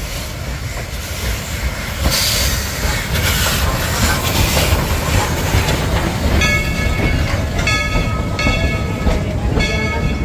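A train running along a rail track with a steady rumble and clatter. From about six seconds in there is a series of repeated pitched toots.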